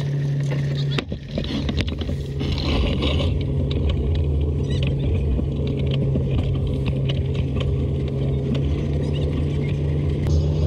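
Sailboat's diesel engine running steadily at a constant pitch, with scattered knocks and rattles over it.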